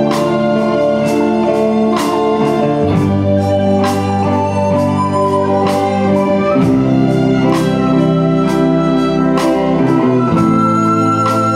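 Soprano recorder playing a slow melody over an electronic keyboard ensemble's sustained organ-like chords, with a steady drum beat. The recorder holds a high note near the end.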